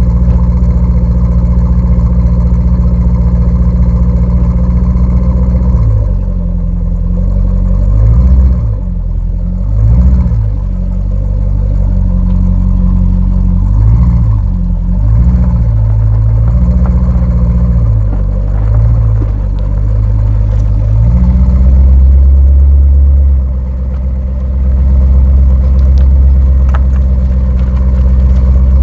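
Holden VZ Commodore's 5.7-litre LS1 V8 exhaust, picked up by a mic right by the tailpipe. It idles with a loud deep rumble, is revved up and down in a string of short blips through the middle, then settles back to a steady low rumble.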